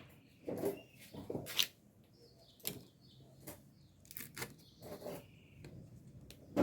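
Scattered light knocks and clicks of kitchen handling as plastic tubs of margarine are opened and scooped into a mixing bowl.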